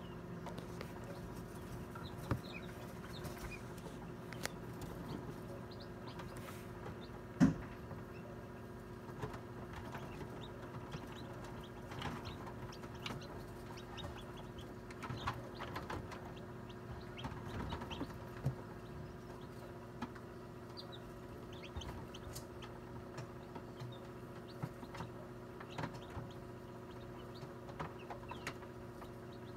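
Newly hatched chicks peeping inside an incubator, short high calls scattered throughout, over the steady hum of the incubator's fan. A single thump about seven seconds in.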